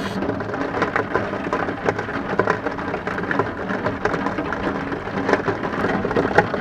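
Heavy rain falling during a thunderstorm, with many irregular drops ticking on a hard surface close to the microphone over a steady hiss of rain.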